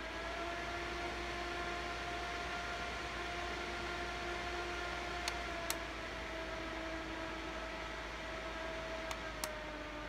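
Enz Dundee D1 handheld fan running on its top speed setting, a steady rush of air over a steady motor hum. Its speed button is clicked twice about five seconds in and twice again near the end, and the hum steps down in pitch each time as the fan drops to speed 3 and then speed 2.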